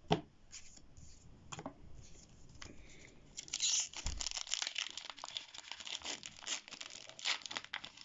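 Foil wrapper of a Pokémon booster pack being torn open and crinkled by hand, a dense crackling from about three seconds in. A sharp knock right at the start.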